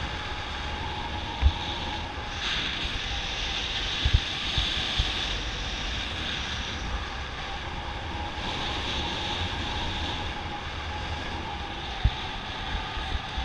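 Airflow rushing over the microphone of an action camera on a tandem paraglider in flight, swelling and easing twice, with a few sharp low thumps of wind buffeting the mic.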